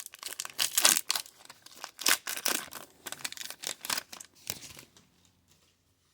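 Crinkling, rustling handling noise as 2022 Topps baseball cards are flipped through one after another. It is dense and irregular and dies away about five seconds in.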